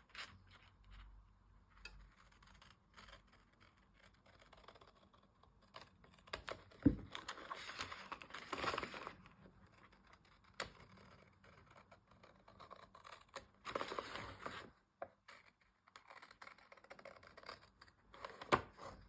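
Big scissors cutting along a journal page, with the paper rustling and scraping and the odd click of the blades. A single thump comes about seven seconds in.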